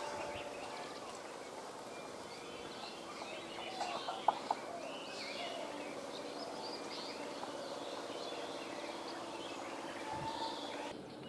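Birds chirping over a faint steady hum from a train receding into the distance, with a couple of sharp clicks about four seconds in.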